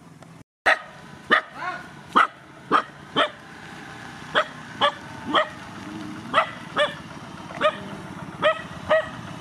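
A dog barking repeatedly, about fourteen short, sharp barks with irregular gaps of half a second to a second, over the steady low hum of a small scooter engine running.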